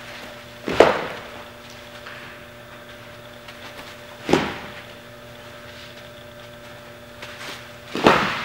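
Baseballs striking a catcher's mitt and gear three times, about three and a half seconds apart: sharp pops that echo off the walls of an indoor gym. A steady low hum runs underneath.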